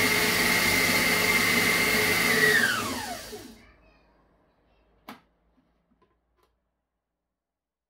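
Kenwood food processor running with a steady whine as it chops crumbs, then switched off: the whine falls in pitch as the motor winds down and stops about three and a half seconds in. A single sharp click follows about five seconds in.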